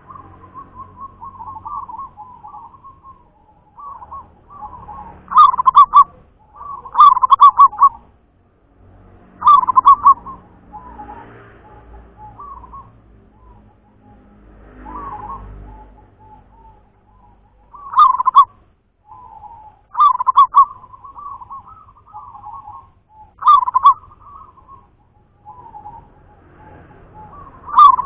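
Zebra dove (perkutut) cooing: seven loud, rapid rolling coo phrases, a couple of seconds apart with a longer break in the middle, and softer coos between them.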